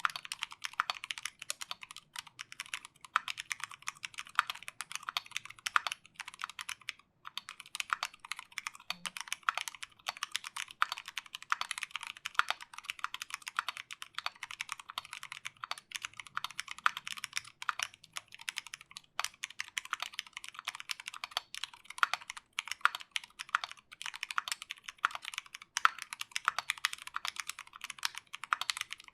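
Continuous typing on a Duck Viper v2 mechanical keyboard with lubed Zealios v2 65g tactile switches, a stainless steel plate and GMK Hyperfuse keycaps: a dense run of crisp keystroke clacks, with a brief pause about seven seconds in.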